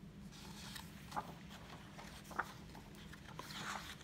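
Faint handling of a paper picture book: a few light clicks, then its pages being flipped with a soft papery rustle near the end.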